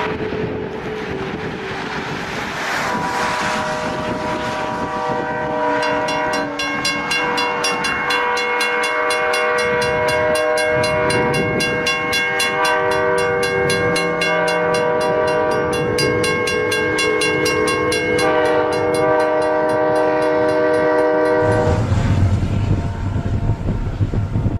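Train horn held in a long, steady chord of several notes, with a fast, even ticking over it through the middle. Near the end the horn stops and the low rumble of the passing train takes over.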